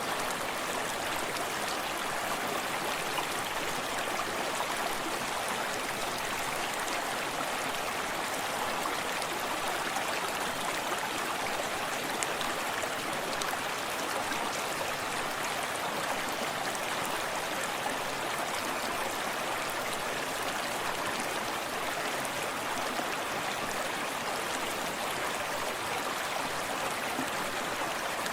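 Forest stream running over rocks: a steady, even rush of water with fine splashing, unchanging throughout.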